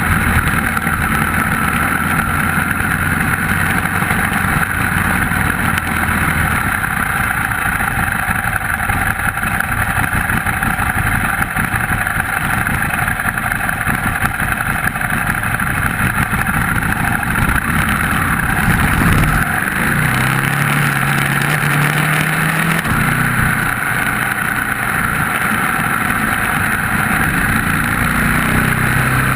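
Sport motorcycle running hard on a race track, its engine note shifting up and down in pitch under a steady loud rush of wind noise over the microphone.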